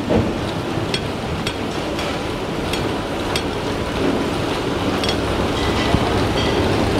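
Steady restaurant background noise, a dense even hiss and rumble, with a few faint light clicks scattered through it.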